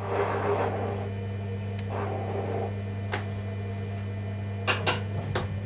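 Steady low electrical hum inside the driver's cab of a Thurbo electric multiple unit, with a few sharp clicks about two, three and five seconds in and two brief rushes of noise near the start and about two seconds in.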